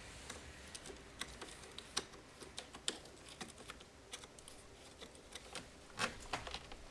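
Faint, irregular clicks and taps of a flat screwdriver working a hose clamp on the plastic air intake, with a louder cluster of clicks about six seconds in.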